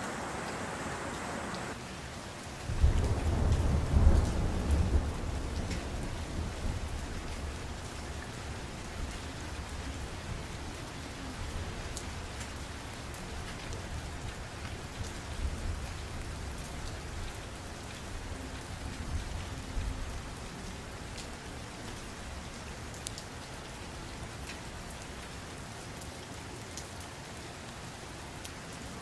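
A low rumble starts about three seconds in, loudest in its first few seconds, then rolls on with smaller swells and slowly dies away, over a steady rain-like hiss.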